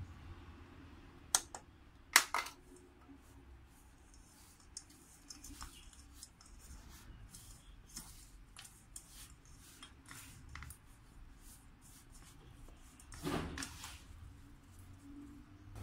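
Hands mixing crumbly flour, butter and sugar in a stainless steel bowl: a soft crackly rustle with light ticks, two sharp knocks about one and two seconds in, and a louder scraping rustle near the end.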